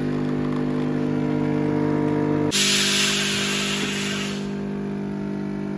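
Electric coffee machine's pump humming steadily, with a loud burst of steam hiss about two and a half seconds in that lasts about two seconds.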